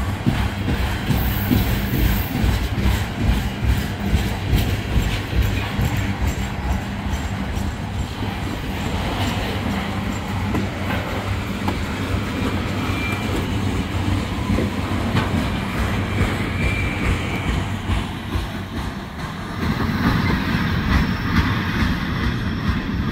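Freight train's flatcars loaded with trash containers rolling past: a steady rumble of steel wheels on rail with rhythmic clicking over the rail joints, and two brief high squeals in the middle.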